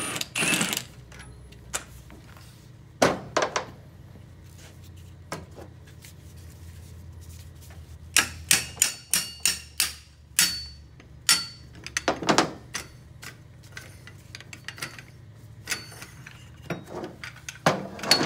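Hammer striking a three-jaw gear puller clamped on a CVT pulley, sharp metallic blows with a short ring after some of them. The blows come singly at first, then in a quick run about eight seconds in, with more scattered near the end.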